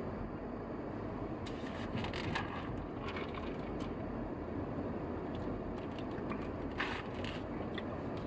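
Steady road and engine noise of a vehicle driving, heard from inside, with a few scattered light clicks and rattles.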